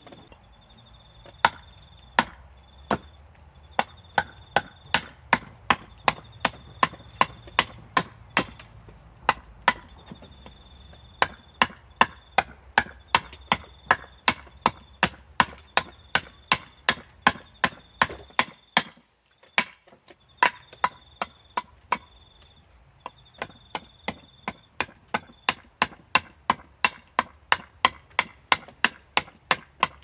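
Small carving axe chopping a Banksia wood spoon blank on a chopping stump: a steady run of sharp wooden chops, about two to three a second, with a short break about two-thirds of the way through.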